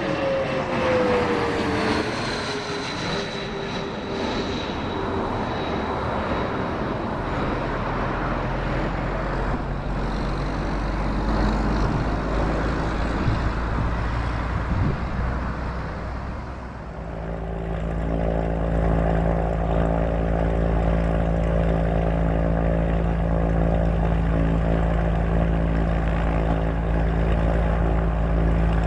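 Arriving ExpressJet regional jet's turbofan engines whining, the pitch falling over the first few seconds as it passes, then a steady rumble. From about 17 seconds in, a different steady engine drone with an even, fixed pitch takes over.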